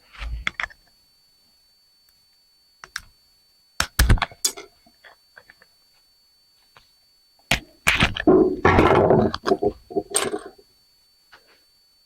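Hand tools and small parts clicking and knocking while a component of an outdoor light fixture is cracked open to get at its silver contacts. A few separate clicks come first, then a denser stretch of clatter and scraping about two thirds of the way through.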